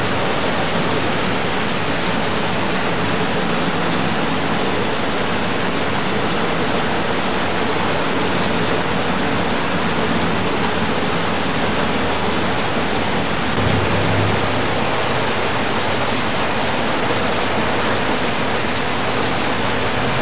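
A loud, steady, even hiss with no speech or music, and a brief low rumble about fourteen seconds in.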